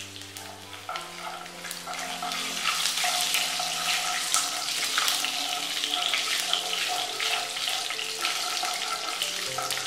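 Cumin seeds and whole spices sizzling and crackling in hot oil while a wooden spatula stirs them. The sizzle swells over the first few seconds and then holds steady.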